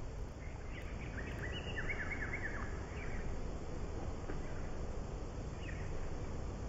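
Birds chirping: a quick run of short falling chirps in the first few seconds and a few more near the end, over a steady low rumble.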